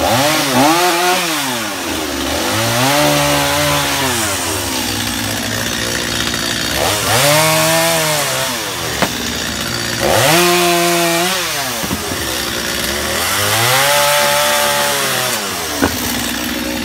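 Two-stroke gas chainsaw cutting olive tree branches, its engine revving up and dropping back about five times.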